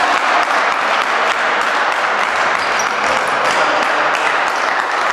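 A small crowd of spectators clapping after a table tennis point, many irregular claps with no common beat.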